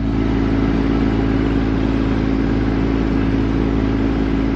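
Tractor diesel engine running steadily at a constant pitch, with no rise or fall.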